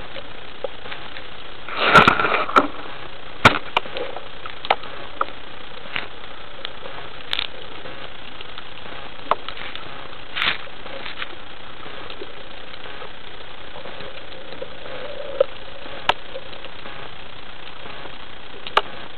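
Underwater sound heard through an action camera's waterproof housing: a steady hiss with scattered sharp clicks and knocks. The loudest sound is a short burst about two seconds in.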